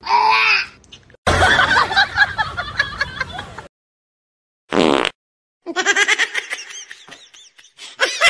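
A person laughing in quick, repeated bursts over the second half, after a few short, separate sounds with silent gaps between them.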